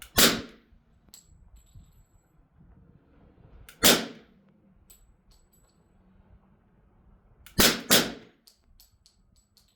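Suppressed HK Mark 23 .45 ACP pistol with a B&T Impulse 2 can, firing subsonic 230-grain rounds: four muffled shots, a few seconds apart at first, then the last two in quick succession. Faint high metallic ticks follow the shots.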